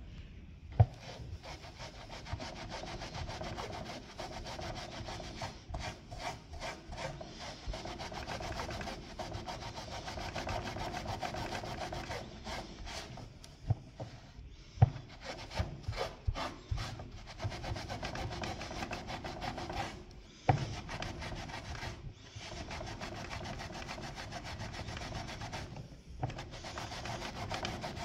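Scrubbing at van-lining carpet to lift specks of glue overspray with tar and glue remover: a steady rasping rub in long spells with short pauses, and a few sharp knocks.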